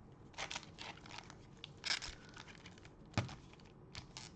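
Foil trading-card pack wrapper being handled and opened: a string of irregular crinkles and crackles, the sharpest about two seconds in and again about three seconds in.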